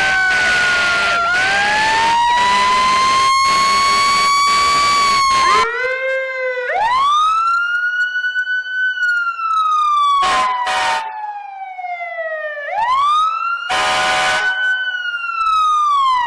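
Emergency-vehicle sirens in wail mode, two recordings back to back. The first wails down and then up over heavy background noise. About six seconds in it cuts to a cleaner, slow wail that rises, falls and rises again, broken twice by short, harsh horn-like blasts.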